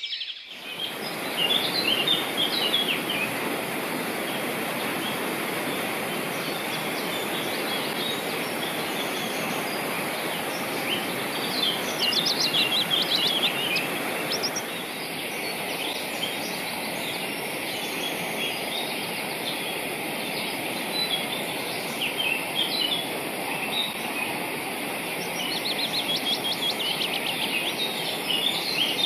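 Small songbirds chirping and trilling on and off over a steady rush of running water.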